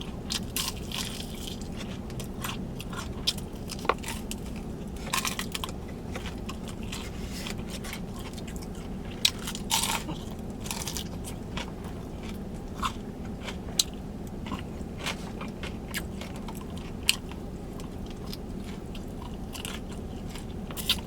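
Close-up chewing and biting of crispy Korean fried chicken, with irregular sharp crunches of the fried coating throughout.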